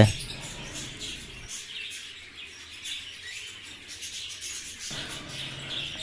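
Parrot chick making soft, rapid begging chirps while it is spoon-fed hand-rearing formula.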